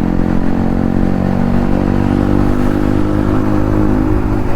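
Yamaha MT-15's single-cylinder engine through an aftermarket Akrapovic exhaust, running under way at a steady pace, its note holding nearly the same pitch.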